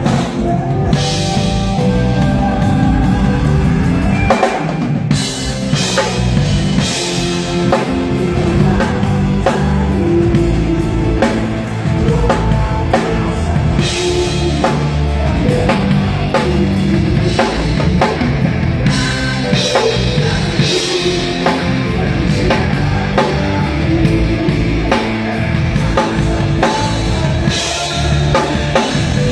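A drum kit played along to a recorded rock song with singing, the kick drum and snare hitting in a steady beat.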